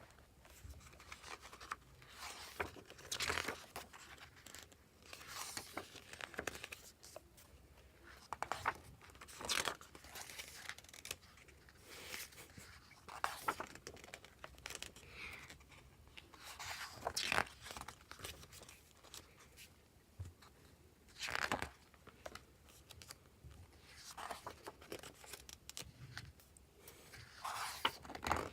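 Packaging being torn open and crinkled by hand, in irregular rustling swishes, while the photobook is unwrapped.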